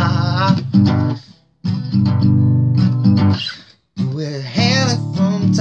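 Acoustic guitar strummed, with a man's voice singing wordlessly over it at times. The sound cuts out briefly twice.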